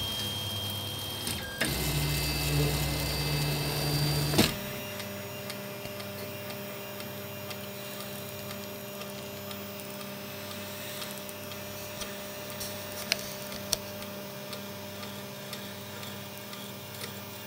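Velleman K8200 3D printer's stepper motors whining for about three seconds as the glass print bed moves away from the nozzle, stopping with a sharp click; after that the printer's cooling fans hum steadily, with a couple of faint clicks.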